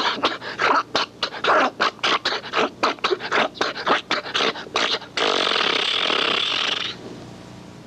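Man's vocal impression, made with hands cupped over his mouth, of an old Model T Ford starting on a cold morning: a quickening run of sputtering pops, then a hiss of about two seconds that fades out.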